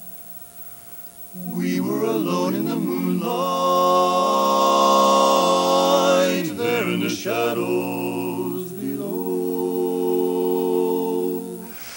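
Barbershop quartet singing a cappella in close four-part male harmony: a faint held note, then about a second and a half in the four voices enter together and sing long sustained chords of a slow ballad.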